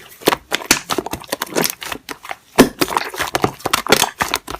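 Slime being squished and worked by hand, giving a string of irregular sharp clicks, pops and crackles.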